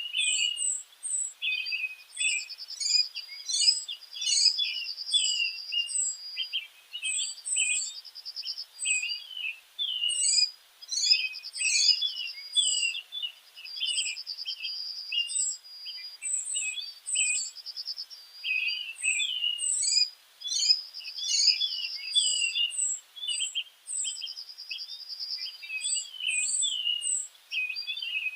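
Several small birds chirping and twittering at once in a continuous, busy chorus of high, quick notes and repeated trills.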